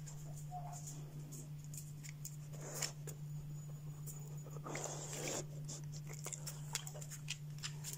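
Dog's claws clicking on a tiled floor as it walks around, with a couple of short rustling noises close by, over a steady low hum.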